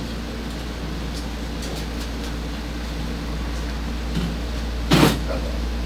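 Steady low hum, with one short, sharp knock about five seconds in.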